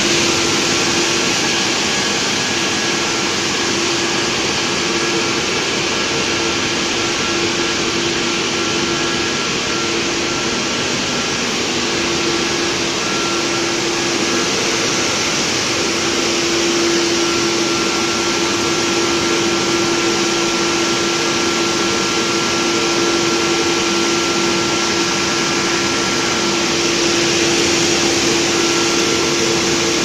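Industrial conveyor washer for cheese baskets running: a steady hiss of water jets spraying inside its stainless-steel tunnel, over a steady machine hum.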